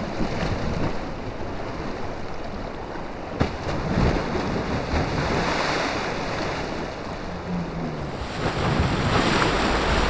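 Fast, swollen Chenab River floodwater rushing past an undercut earth bank, with wind on the microphone. Partway through, a clod of the eroding bank breaks off and splashes into the current.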